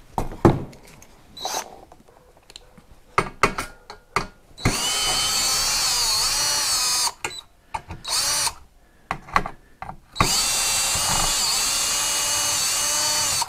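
Cordless drill-driver running in two runs of a few seconds each with a short burst between, its whine dipping and recovering as it turns a self-tapping screw in metal. Clicks and knocks of handling come before the first run.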